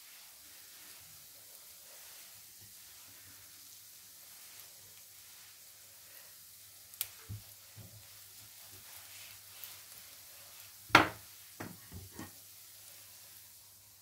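Potato-topped bread slices frying in oil in a nonstick pan, a faint steady sizzle. A fork knocks against the pan a few times, with one sharp knock near the end followed by two or three lighter ones.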